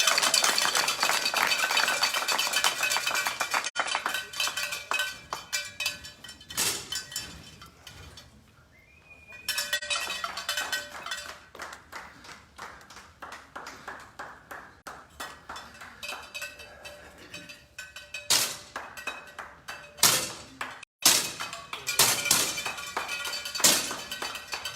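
Scattered 10 m air pistol shots going off along the firing line, each a short sharp snap, with a light clinking clatter in the hall between them.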